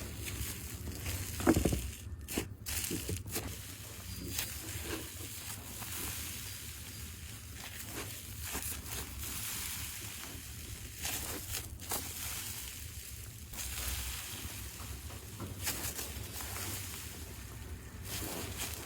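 Hands squeezing and stretching slime, with irregular small crackles and pops and one louder squish about a second and a half in.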